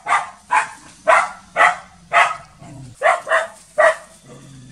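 Dog barking repeatedly at a monitor lizard, about two sharp barks a second, eight in all, then a lower steady sound in the last half second.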